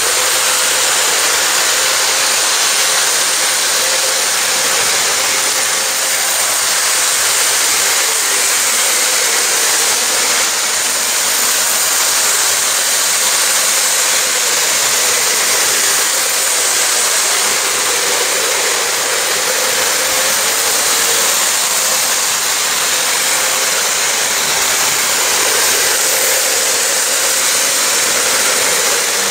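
Electric model train running on plastic-roadbed track: a steady whirring rumble with a faint hum.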